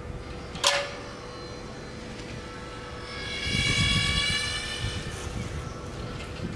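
A sharp click a little under a second in, then a passing engine whose low rumble and high whine swell and fade between about three and five seconds in.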